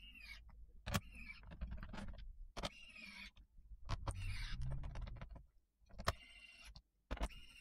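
Pen-style electric screwdriver running in about six short whirring bursts, driving case screws into a laptop's plastic bottom cover, with sharp clicks and knocks in between.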